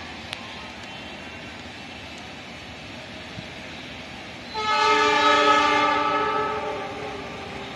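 Horn of an approaching passenger train's diesel locomotive, sounding one long multi-tone blast that starts a little past halfway and lasts about two and a half seconds before fading out.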